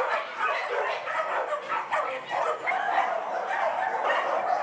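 Many dogs barking at once, their calls overlapping without a pause.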